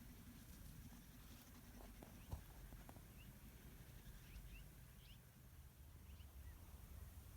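Near silence with a few faint, short, scattered calls, typical of distant Canada geese honking, and one small knock about two seconds in.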